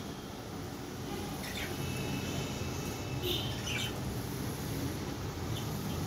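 Cockatiels giving a few short, high chirps, the strongest two about three and a half seconds in, over a steady low hum.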